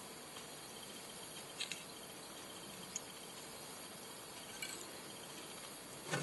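Steady low hiss with a few faint small clicks, from fingers handling thread and marabou feathers on a fly held in a tying vise.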